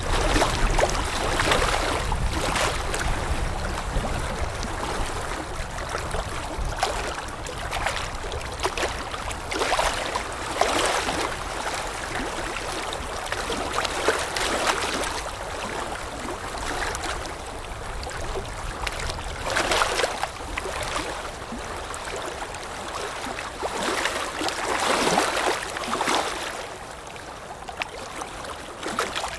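Water lapping in irregular small splashes every second or two, over a steady low wind rumble.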